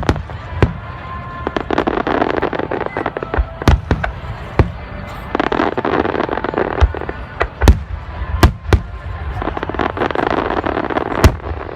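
Aerial fireworks bursting: sharp booms every second or two, with longer stretches of dense crackling between them, over music playing on loudspeakers.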